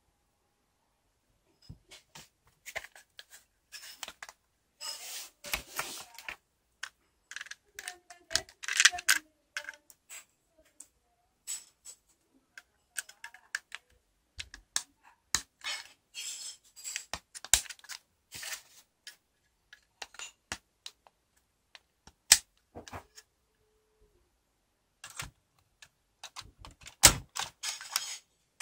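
Hard plastic LEGO Technic parts clicking and clattering in the hands, with irregular sharp snaps as a grey battery box is handled and pressed into the model's frame.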